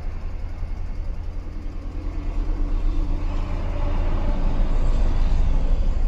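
2013 Audi Q5's 2.0-litre turbocharged four-cylinder engine idling, heard from inside the cabin: a steady low rumble that grows louder about four seconds in. The engine is misfiring, with misfires counting up on cylinder 3.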